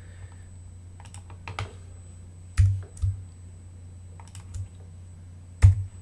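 Scattered clicks and taps from a computer keyboard and mouse during 3D modelling work, about seven in all. The two loudest, near the middle and near the end, land with a dull thump. A steady low hum runs underneath.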